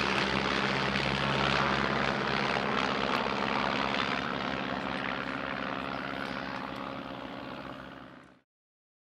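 de Havilland Tiger Moth biplanes flying overhead, their four-cylinder Gipsy Major piston engines and propellers running steadily. The sound fades over the last few seconds and then cuts off abruptly.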